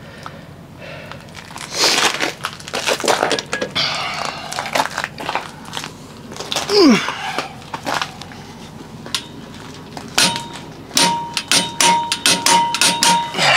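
Metallic clicks and knocks from a large click-type torque wrench set to 600 ft-lb on a semi-truck wheel lug nut, coming in several bursts. The nut is not turning at this setting.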